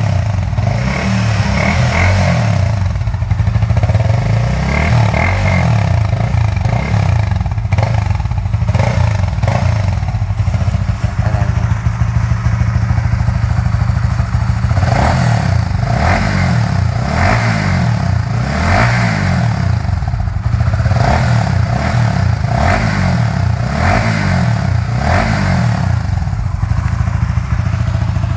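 Honda Winner 150's single-cylinder engine running through a Z1000-style aftermarket muffler with a car-type expansion chamber on the header pipe, which gives it a deep, warm note. From about halfway, the throttle is blipped over and over, roughly once a second.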